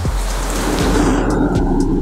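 High-pressure LPG stove burner turned up to full flame at its regulator knob: a hiss of gas for about the first second, settling into a steady low rumble of the burning flame.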